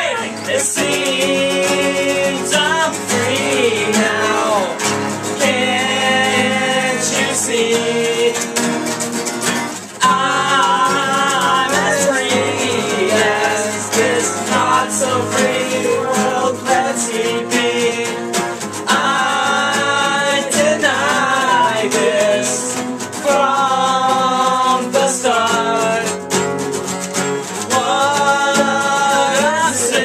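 Several acoustic guitars strummed together with a voice singing over them: a live acoustic band performance.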